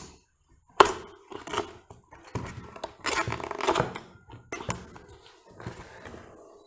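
Hands handling the black plastic housing of an Amazon Basics air inflator and drawing its air hose out of the storage compartment at the back: a series of plastic clicks and knocks, the loudest about a second in, and a longer scraping rustle around three seconds in as the hose comes out.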